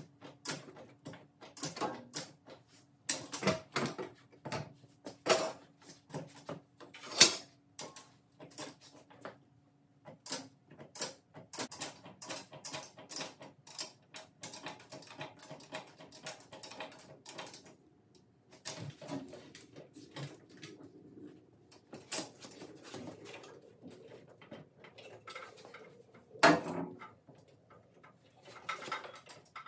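Irregular knocks and clunks as a VW air-cooled engine is pushed and levered onto the transaxle, the flywheel seating in a freshly ground bell housing, with louder knocks about seven seconds in and near the end.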